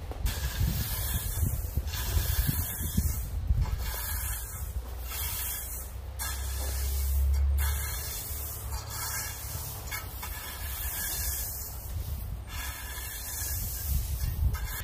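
A rake and a stiff broom scraping and dragging through loose gravel in repeated strokes as it is spread and levelled, with a low rumble underneath, strongest about halfway through.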